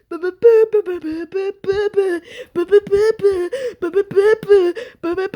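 A high-pitched voice vocalising a quick string of short sung nonsense syllables as improvised dance music, in place of real music.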